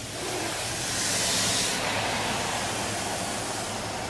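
High-pressure rinse water from a WashWorld Razor touch-free car wash spraying against the car, heard from inside the cabin. It swells with a sharper hiss about a second in as the spray passes closest, then eases slightly.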